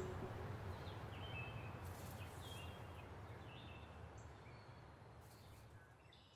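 Faint outdoor ambience fading out: a steady low rumble and hiss, with a few short bird chirps.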